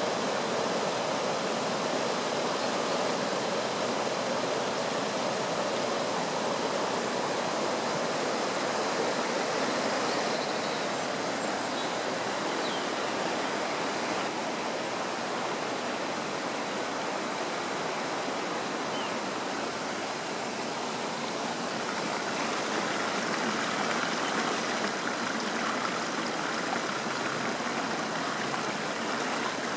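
Steady rush of running floodwater, an even wash of moving water.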